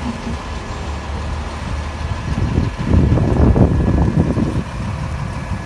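Heavy truck engine running steadily at idle, with a louder, rough rumble for a couple of seconds in the middle.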